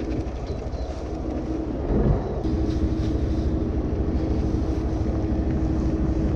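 Fishing boat's engine running steadily: a low rumble with a steady hum that settles in about two seconds in.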